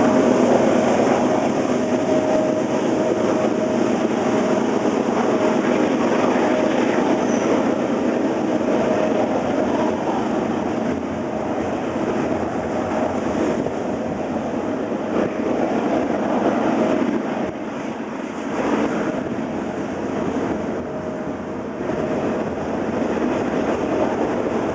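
Double-stack intermodal freight train's container cars rolling past: a steady rumble and rattle of steel wheels on the rails, with a thin steady whine riding over it that is strongest in the first half.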